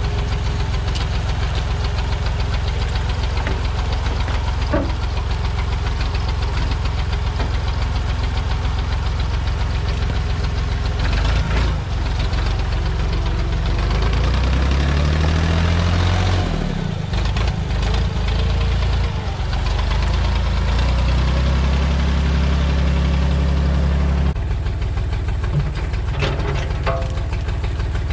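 Diesel engine of an old Massey Ferguson backhoe running steadily. Its note drops and shifts in pitch for a stretch in the middle, then settles back to the steady run.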